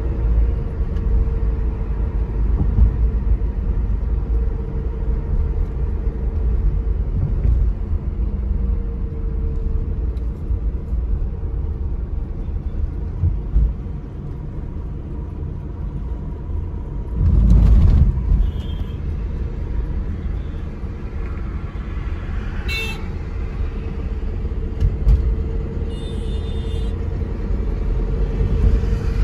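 Steady low rumble of a car on the move, tyre and road noise, rising to a louder surge for about a second just past halfway. Car horns toot briefly twice in the later part.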